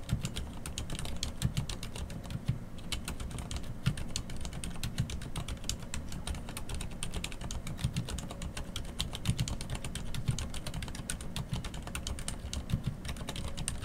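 Continuous fast typing on a Hansung GK998B full-size mechanical keyboard with Cherry MX Silent Red switches: quiet, rapid key presses, with a deeper thud about once a second.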